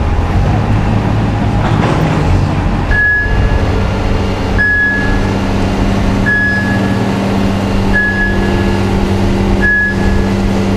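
Cargo crane's engine running steadily while a short high warning beep sounds about every second and a half, starting about three seconds in, as the crane drives forward.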